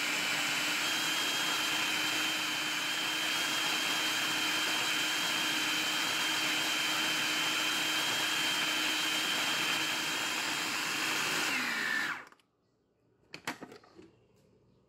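Hamilton Beach food processor motor running steadily with a whine, blade spinning ground almonds into almond butter, then switched off about twelve seconds in, its pitch falling as it winds down. A few short knocks follow.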